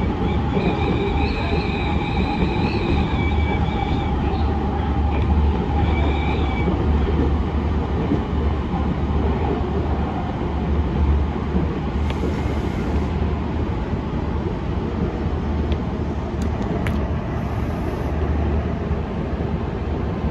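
Senboku Rapid Railway 5000 series electric train running, heard from just behind the driver's cab: a steady low rumble of wheels and motors. A high whine sounds over the first six seconds or so, then fades.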